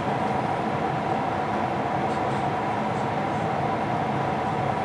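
Steady cabin noise inside a Boeing 777-300ER airliner in flight: engine and airflow noise heard from an economy window seat, an even drone that holds at one level without change.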